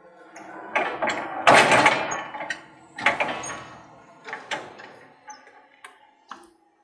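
A 2014 Komatsu stand-up electric forklift pulling in to park: a run of clunks and rattles, loudest about a second and a half in and again at three seconds, thinning to a few scattered clicks near the end.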